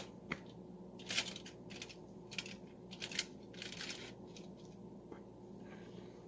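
Faint kitchen handling sounds as risen bread dough is lifted from a mixing bowl onto a baking pan: scattered soft rustles and a few light knocks and clicks, irregular and about a second apart.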